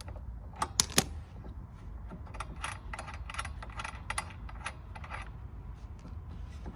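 Light clicking of hand tools and metal parts while a lawn mower wheel is undone anti-clockwise: a few sharp clicks just under a second in, then a steady run of light clicks about four a second.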